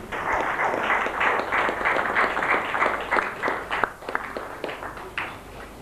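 Audience applauding, the clapping thinning to a few scattered claps after about four seconds.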